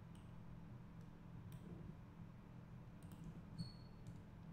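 A handful of faint computer mouse clicks, spread a second or so apart, over a low steady hum.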